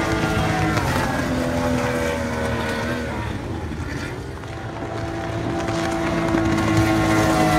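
Outboard-powered speedboats running fast past: one engine's note slides down and fades about four seconds in, then another boat's engine grows louder near the end.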